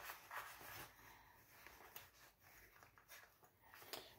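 Faint rustling and rubbing of silicone USB-C cables and the fabric organizer pouch as the cables are tucked into its elastic loops, with a few light clicks.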